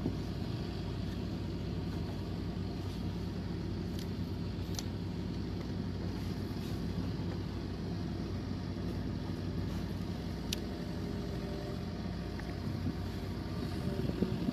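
A motor running steadily with an even low hum, with a few faint clicks.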